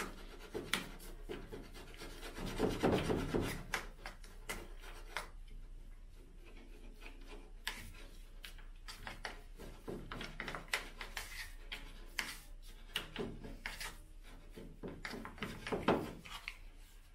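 Hair-dye tint brush stirring and scraping dye cream around a plastic bowl: an irregular rubbing and scratching. It is louder for a couple of seconds near the start and again near the end.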